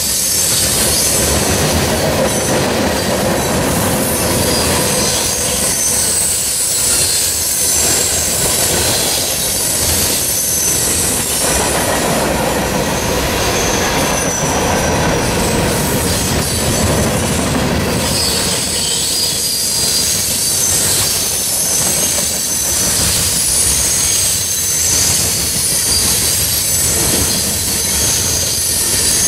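CSX mixed freight train's cars rolling past at speed: a steady rumble of steel wheels on rail with a high-pitched, wavering wheel squeal and clicking from the wheels over the rail joints.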